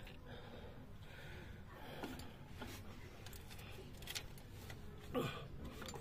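Faint, scattered clicks of metal parts being handled as a timing chain is fitted onto the cam sprocket of a Bajaj Optima auto-rickshaw engine, with a short louder sound about five seconds in.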